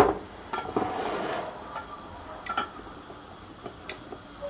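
Glass canning jars and metal lids being handled and a hand-held capping tool fitted onto a jar. There is a sharp click at the start, a short clatter about a second in, and a couple of lighter clicks later.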